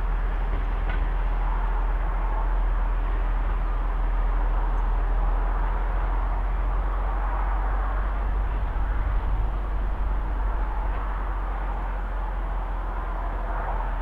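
North Eastern Railway 1903 Autocar no. 3170 running along the line as it moves away, a steady even noise with no breaks, mixed with wind rumbling on the microphone.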